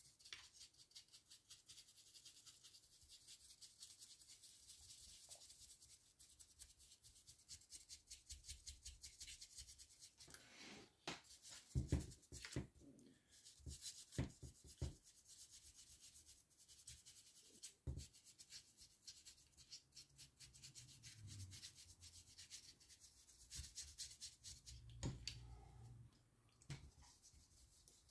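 Faint, rapid scratching of a dry brush flicked back and forth over the wing of a plastic miniature, several strokes a second. A few louder knocks from handling the model come about a third of the way in and again past the middle.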